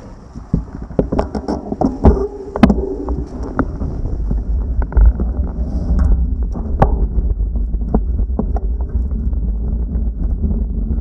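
A bicycle starts from a stop. A string of sharp clicks and knocks comes from the bike and camera mount in the first few seconds. Then a steady low wind rumble on the bike-mounted camera's microphone settles in as the bike gathers speed.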